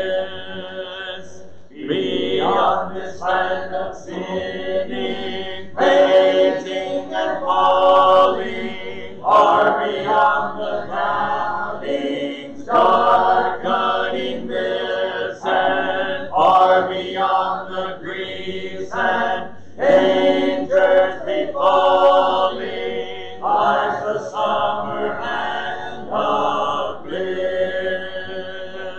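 Church congregation singing a hymn a cappella, without instruments, in sung phrases with short breaks between them.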